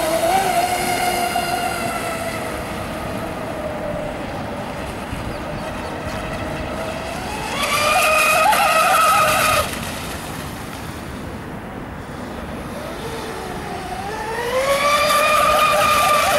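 Radio-controlled catamaran model boat running fast on open water, its motor giving a high, steady whine. The whine swells loudest twice as the boat passes close, about eight seconds in and again near the end, with the pitch climbing just before the second pass.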